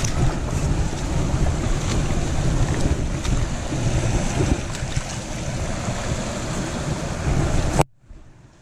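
Wind buffeting the microphone over a steady rush of creek water. The noise drops away suddenly near the end.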